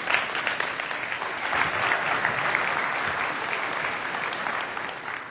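Large audience applauding, a steady mass of hand claps that begins to fade near the end.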